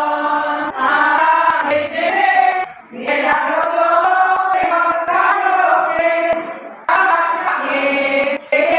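A group of women singing together into handheld microphones, in long sung phrases with short breaks between them.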